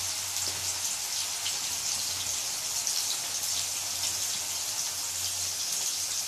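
Bitter gourd slices deep-frying in hot oil in a kadai: a steady crackling sizzle.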